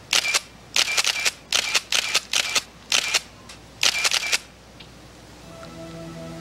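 Nikon 35 mm SLR camera firing frame after frame, its shutter clicking with the whir of the motor-drive film advance, about seven shots in the first four and a half seconds, some in quick pairs. Soft music with held notes comes in near the end.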